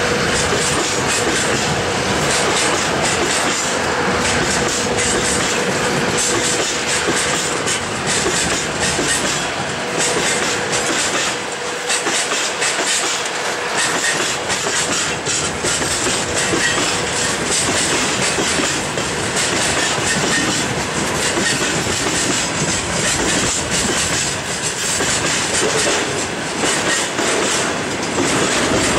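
Freight wagons rolling past at close range, open gondola cars and then tank cars, their wheels clacking steadily over the rail joints under a continuous rumble. A thin steady whine sits under it for the first half and then fades out.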